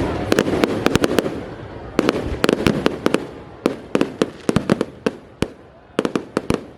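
Fireworks display: clusters of sharp bangs and cracks, several a second, in irregular bursts, over a rumble that dies away in the first two seconds.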